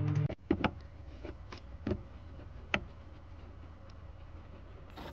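Music cuts off about a third of a second in, then a handful of sharp clicks and taps from a hand working the rear light bulb holder behind a car's boot side trim, over a low steady hum.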